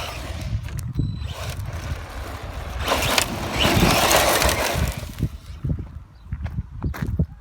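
Strong wind buffeting the microphone as a steady low rumble, with a louder rushing gust from about three to five seconds in.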